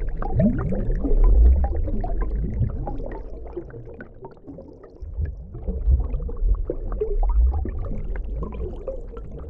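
Underwater bubbling and gurgling, as in a fish-tank or underwater sound effect: a deep rumble dotted with quick rising blips, fading about four seconds in and swelling again a second later.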